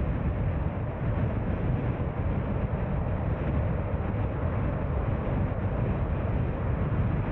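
Steady low rumble of a car being driven, engine and road noise together.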